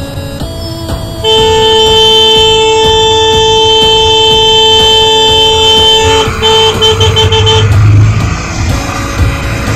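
Vehicle horn sounding one long, steady blast of about five seconds, then a few short toots, over background music.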